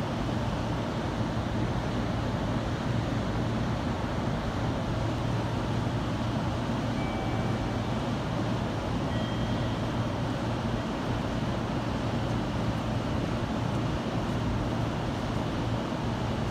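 JR 313 series electric train standing at the platform, its onboard equipment giving a steady low hum under continuous station background noise.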